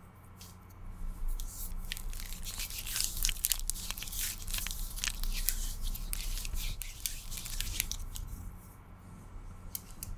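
Close-miked ASMR crinkling and tapping by hands wearing long fake claw nails: a dense run of small clicks and crackles that starts about a second in and thins out near the end.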